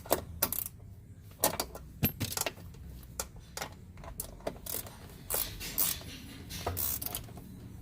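Irregular metallic clicks and clinks of hand tools and hardware being handled while fitting a car door check, a dozen or more sharp strokes at uneven spacing.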